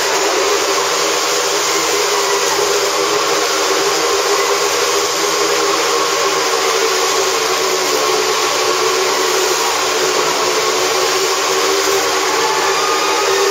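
Motorcycle engines running steadily at speed as the bikes circle the vertical wooden wall of a Wall of Death drum, a loud continuous drone with no let-up.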